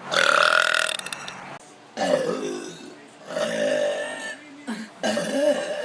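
A woman belching: four long, loud burps in a row, each about a second.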